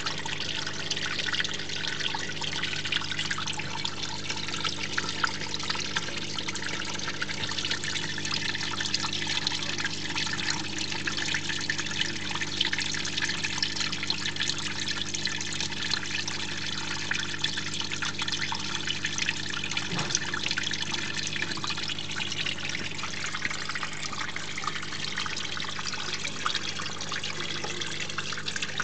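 Water trickling and splashing steadily down a terrarium waterfall, with a low steady hum underneath.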